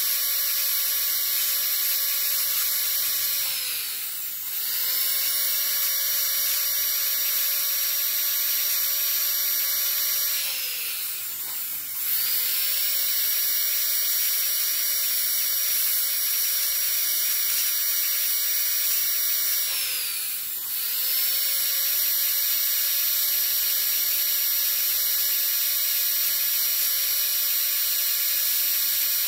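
A high-speed dental handpiece whines steadily as its fissure bur cuts and smooths the walls of a class I cavity in a plastic typodont molar. Three times the whine slides down in pitch and climbs back up as the drill briefly eases off and speeds up again, and it starts to wind down near the end.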